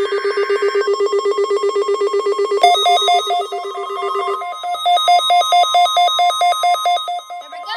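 Weather radio alarm sounding for the Required Weekly Test: a loud, rapidly pulsing electronic trill that jumps to a higher pitch and pulses more slowly about two and a half seconds in.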